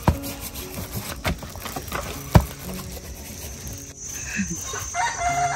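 Scattered sharp knocks and clicks, the loudest about two and a half seconds in, then a chicken calling near the end.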